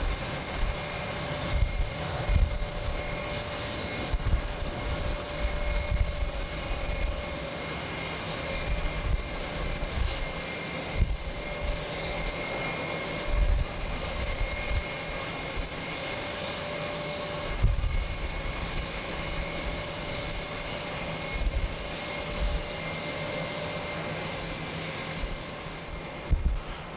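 Twin-engine widebody jet airliner taking off, its engines giving a steady drone with a whine in it. Irregular low gusts of wind buffet the microphone.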